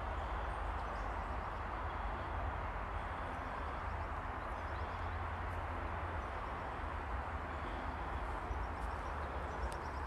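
Forest ambience: a steady hiss with a low wind rumble on the microphone and a few faint, scattered bird chirps.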